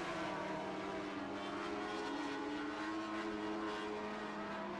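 Engines of several Lightning Sprint race cars running together on a dirt oval: a steady layered drone whose pitches waver slightly as the cars circle the track.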